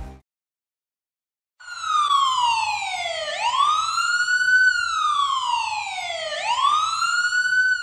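Siren sound effect that starts about a second and a half in, a wail that slowly falls and rises twice.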